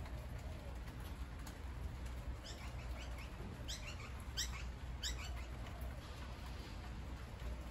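Steady rain falling on monstera leaves, with a bird giving a quick run of short, sharp calls that slide down in pitch through the middle few seconds.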